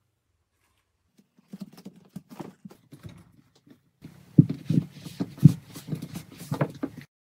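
Irregular knocks and scuffs of a person moving and pressing down on a wooden floor, a few a second, starting faint about a second in and growing louder and sharper about halfway through.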